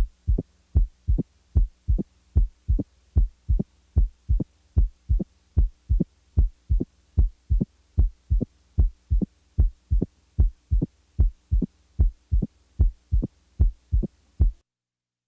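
Stethoscope recording of heart sounds with a mitral opening snap: first and second heart sounds followed closely by a short, sharp snap, repeating in a steady rhythm. The opening snap is most typical of mitral stenosis. The beats stop just before the end.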